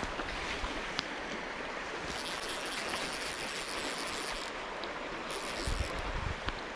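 Shallow stream running over a rocky bed, a steady rush of water, with a few low thumps near the end.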